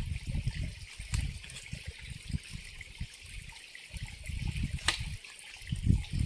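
Water trickling as a steady hiss, mixed with irregular low rumbling bumps and a sharp click about five seconds in.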